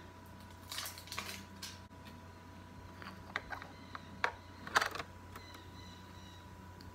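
A few light clicks and knocks of small cosmetic containers and a makeup brush being handled, the loudest nearly five seconds in, over a faint steady electrical hum.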